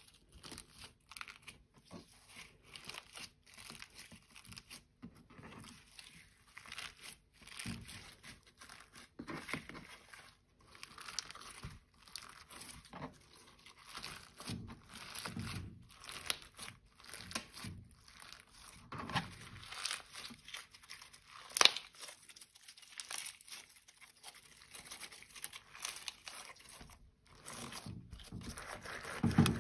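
Clear slime with glitter mixed in, kneaded, folded and pressed by hand against a plastic cutting board: irregular sticky crackles, squelches and small pops, with one sharp click about two-thirds of the way through.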